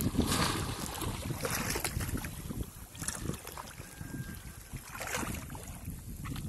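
Shallow water splashing and sloshing in a few bursts as bamboo polo fish traps are pushed down into it by men wading, over a steady rumble of wind on the microphone.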